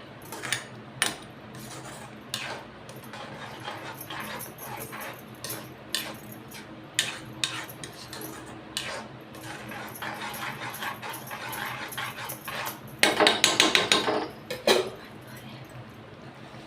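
Metal spoon knocking and scraping against a cooking pot as the tomato-and-sev curry is stirred, over a steady low hum. About 13 seconds in there is a louder second or so of rapid scraping strokes.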